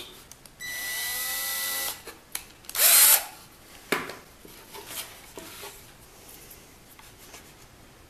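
Cordless drill spinning up and running steadily for just over a second, twisting a short length of nylon tubing into a tight hole in a pine board. A brief loud rasp follows about three seconds in, then a few light knocks.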